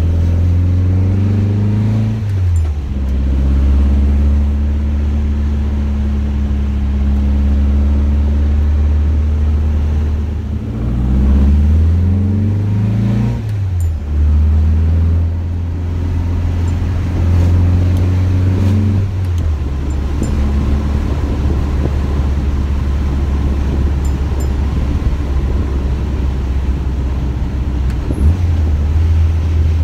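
Air-cooled VW Beetle 1303S flat-four, a 2007cc engine on dual Weber 48 IDA carburettors, driving and heard from inside the cabin. Its note climbs under acceleration and falls away twice, about two and a half seconds in and again around thirteen seconds, with steady cruising between.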